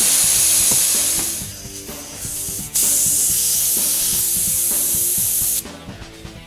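Compressed air from a rubber-tipped blow gun hissing as it is forced backwards through a clogged windshield washer nozzle on a 1999 Honda CR-V hood to blow out the debris. One loud blast fades out about a second and a half in, and a second steady blast runs for nearly three seconds from about three seconds in.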